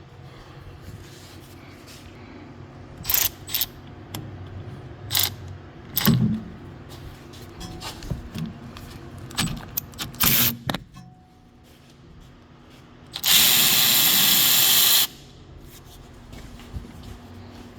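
Scattered metallic clicks and clanks of hand tools on brake parts, then a power tool runs in one loud burst of about two seconds.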